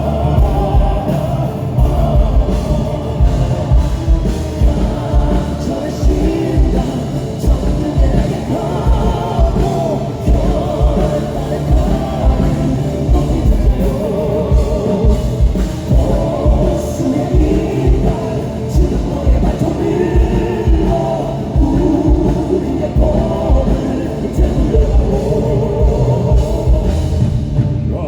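Live rock band with a fast, heavy kick-drum beat and male voices belting over it, loud throughout.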